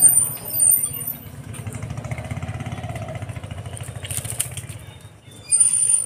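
Motorcycle engine idling with a steady low pulse, with short, very high-pitched squeals at the start and again near the end.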